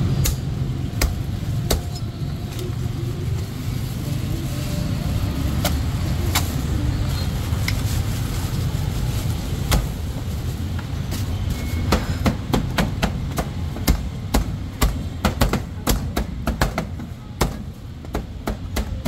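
A knife chopping on a cutting board: scattered strikes at first, then a fast, irregular run of chops in the second half, over a steady low rumble.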